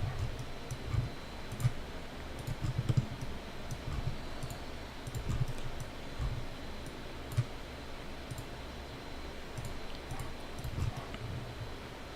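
Irregular computer mouse clicks, scattered unevenly, with soft low thumps underneath, as points are placed one by one to draw the splint's outline in dental CAD software.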